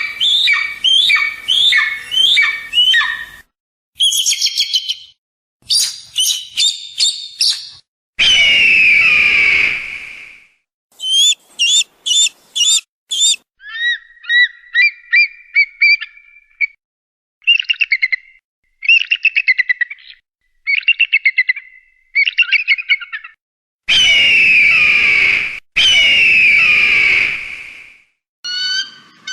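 Eagle and hawk calls, a string of separate recordings with short silent gaps between them: quick series of sharp whistled notes and chattering bursts, and three long, harsh screams that fall in pitch, about two seconds each, one near the middle and two back to back near the end.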